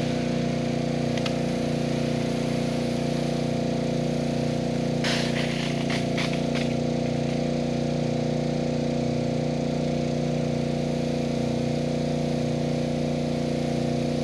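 Small gasoline engine of a portable trash pump running steadily while it pumps water out through a long fire hose. A few brief hissing bursts come about five to seven seconds in.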